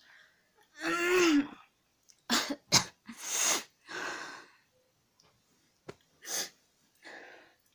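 A woman's stifled laughter into her hand: a high squealing laugh about a second in, then a run of short, sharp puffs of breath and a few fainter ones near the end.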